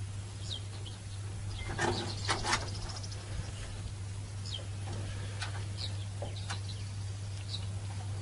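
Scattered short bird chirps over a steady low hum, with a brief cluster of knocks and rustles about two seconds in.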